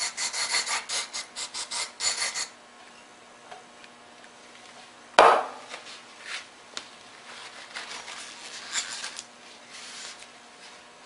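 Quick repeated bursts of aerosol carburetor cleaner sprayed through a straw into a carburetor float bowl, about four a second, for the first two and a half seconds. A single sharp knock about five seconds in, then paper towel rubbing against the metal bowl near the end.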